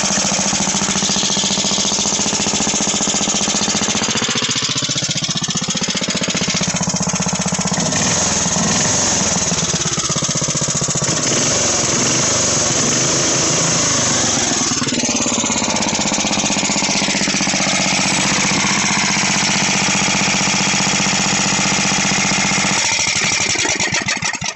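8 hp Briggs & Stratton single-cylinder engine running steady and loud, started cold without choke and running strong, then cut off near the end.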